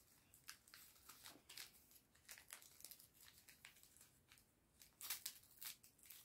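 Wrapping paper crinkling and softly tearing as a child carefully picks a small present open: faint, irregular crackles, a little louder about five seconds in.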